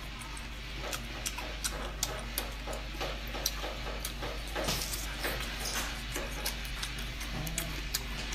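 Chewing of raw octopus tentacle sashimi dipped in vinegar, with irregular wet mouth clicks and smacks, a few every second.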